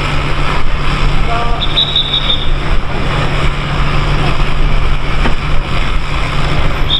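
Steady low mechanical hum under a loud, even rushing noise, with a brief high squeal about two seconds in and another at the end.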